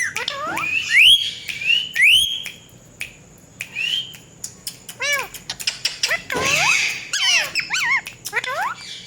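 Ringneck parrot calling: a series of rising whistles over the first couple of seconds, then after a short lull quick arched chirps, a loud harsh squawk about six and a half seconds in, and a run of rapid chirps.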